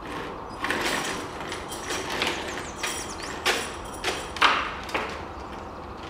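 Outdoor urban ambience: a steady hum of distant traffic under a run of short, sharp knocks and clatters, the loudest about four and a half seconds in, with a few faint bird chirps.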